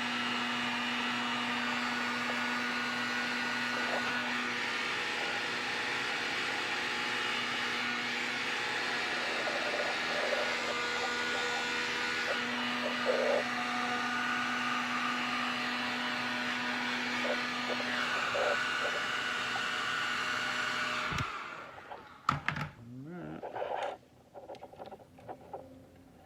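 Electric heat gun running with a steady blowing whine, switched off suddenly about 21 seconds in, followed by a few clicks and knocks.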